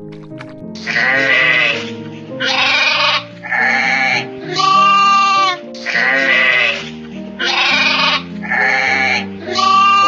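Sheep bleating: about eight loud bleats one after another, over background music.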